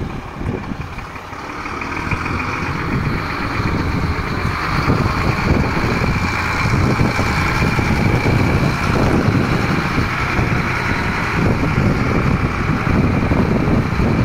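Heavy diesel truck engine idling steadily, a little louder from about two seconds in, with wind buffeting the microphone.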